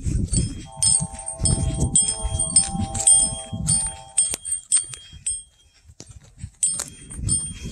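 Dull thuds of Gypsy horses' hooves trotting on pasture turf. Light, high metallic chimes ring over them again and again, and a steady hum runs through the first half. The sound dips almost to silence for a moment a little past the middle.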